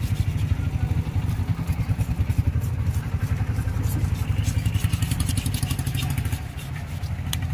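A motorcycle engine idling with a steady, rapid low pulse, the loudest sound throughout. Over it come the scratchy strokes and clicks of a knife blade scraping scales off a catla fish.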